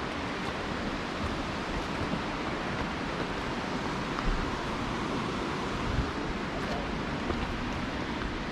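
Steady rush of falling water from a waterfall, an even noise with no pauses, with wind rumbling on the microphone.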